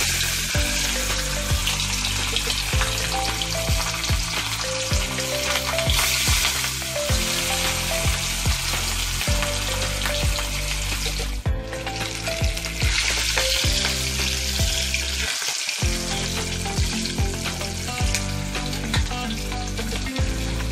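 Pieces of snakehead (shol) fish sizzling steadily as they fry in hot mustard oil in a kadai. Background music plays quietly underneath.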